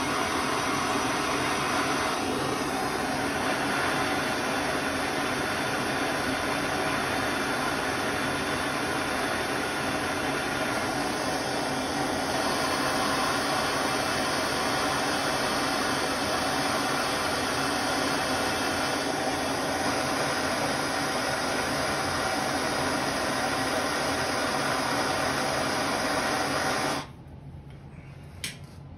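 Handheld gas blowtorch burning with a steady hiss as it heats rusted spoke nipples to free them. The hiss cuts off suddenly about two seconds before the end, followed by a single click.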